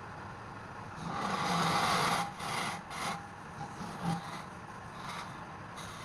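Rubbing on wood: one long stroke about a second in, then several short ones, over a steady low hum.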